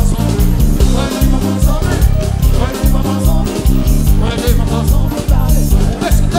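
Loud live concert music with a heavy bass line and a steady beat.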